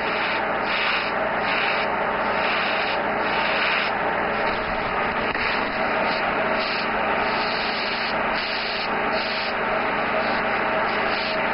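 Airbrush hissing as paint is sprayed, the hiss swelling and easing in quick repeated bursts as the trigger is worked, over a steady low hum.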